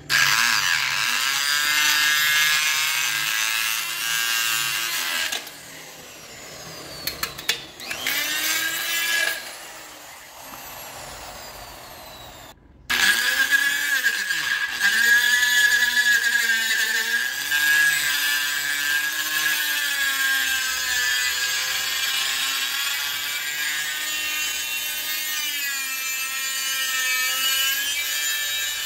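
Makita die grinder with a pink abrasive stone grinding the inside of a motorcycle drum-brake drum as the wheel turns, a high whine that wavers in pitch as the stone bites. It is dressing the worn drum and taking off its edge lip so oversize brake shoes fit. The grinding goes much quieter for several seconds in the middle, then runs loud again.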